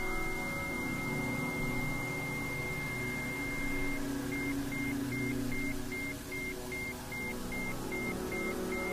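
Synthesized meditation music: a soft sustained drone of held tones under a high, pure sine tone. About four seconds in, the high tone starts pulsing on and off, about two and a half times a second.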